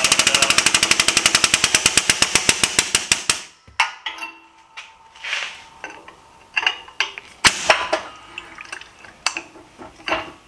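The shop press's air-over-hydraulic pump chattering in a rapid, even rattle that stops about three and a half seconds in, as the ball die forces a cold aluminium fire-extinguisher bottom into a cup. After it, a few scattered metal clicks and knocks.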